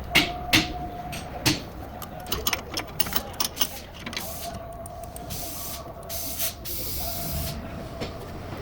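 Sharp metallic clicks and knocks of hand tools in the first few seconds, followed by three short hissing sprays, with a faint steady whine underneath.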